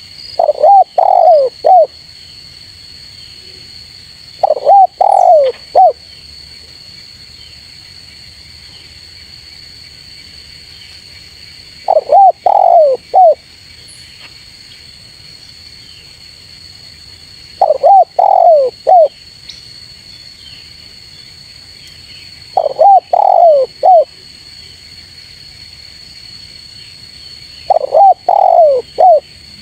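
Spotted dove (tekukur) cooing: six phrases of three or four coos each, a few seconds apart. A steady high whine runs behind them.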